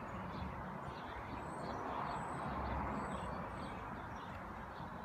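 Outdoor ambience: a steady background hiss with a small bird chirping repeatedly, about two or three short high chirps a second.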